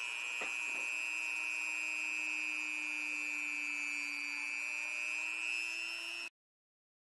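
Small brushed electric motor whining steadily, its pitch sagging slightly and recovering, with a few light clicks near the start; the sound cuts off suddenly about six seconds in.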